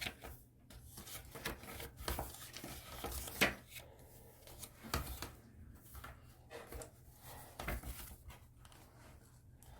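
Soft, irregular rustling, scraping and light knocking of small objects being handled on a desk or table, with one sharper knock about three and a half seconds in, over a low steady hum.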